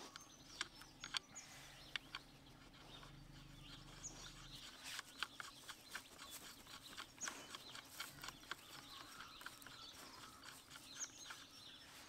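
Faint birds chirping now and then, with scattered small clicks throughout.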